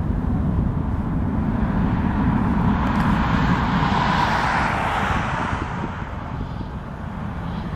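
Airbus A310 airliner's twin jet engines at climb power, a steady rumble with a hiss that swells a little in the middle, then slowly fades as the aircraft climbs away.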